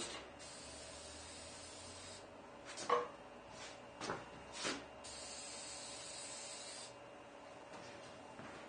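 Aerosol can of Marsh spray ink spraying: a few short puffs about three to four and a half seconds in, then one steady hissing spray lasting about two seconds.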